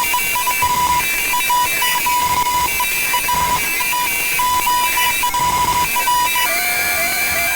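Electronic beeps of uneven length at one steady pitch over a constant hiss, with higher tones flickering alongside. Near the end the beeps give way to a lower, wavering tone.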